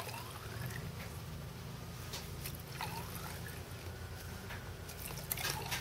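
Water trickling from a cup into a narrow test tube as it is filled, the pitch of the filling rising faintly as the tube fills.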